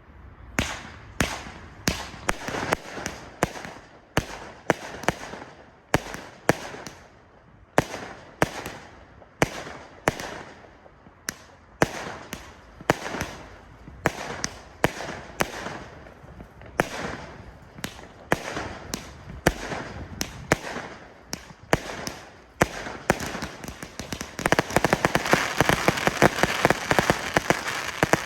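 Klasek Profi Show 200-shot, 20 mm firework cake firing: a shot every half second or so, each a sharp bang followed by a hissing, crackling tail. About four seconds before the end the shots give way to a dense, continuous crackle.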